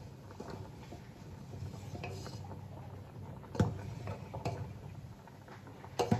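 Steel ladle stirring thick, simmering kheer in a stainless steel pot, with a few sharp clinks of metal on metal as it knocks the pot, the loudest about three and a half seconds in and another near the end, over a low steady rumble.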